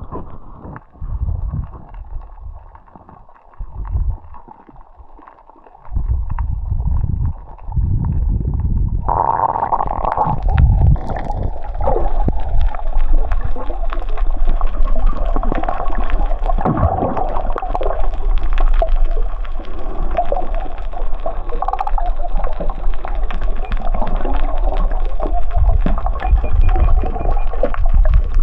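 Muffled underwater sound of water moving and bubbling. Low surges come and go for the first few seconds, then a steady louder rush sets in from about six seconds, with fast crackling clicks running through it.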